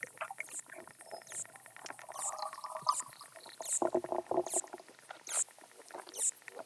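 Underwater pond sounds heard through a hydrophone: aquatic insects stridulating, a rapid crackle of clicks with high falling chirps about once a second, and a buzzy pulsed call in the middle.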